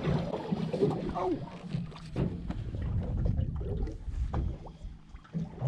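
Low rumble of wind and water around a small fishing boat, with a few light knocks on the boat.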